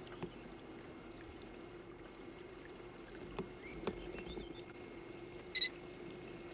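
A boat's motor runs steadily with a low hum, and there are a few light knocks. Near the end come two quick electronic beeps, the loudest sound.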